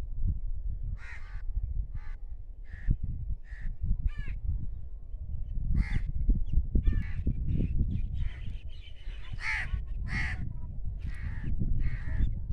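Crows cawing repeatedly, a dozen or so short harsh calls that overlap near the middle and end, over a low steady rumble.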